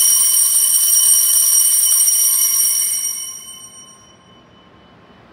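Altar bells rung at the elevation of the consecrated chalice, signalling the consecration. A high metallic ringing with several steady tones holds level for about three seconds, then dies away.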